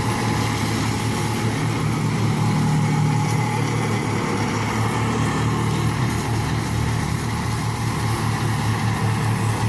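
Engine of a heavy clearing machine running steadily under load, a constant low hum with no changes in speed.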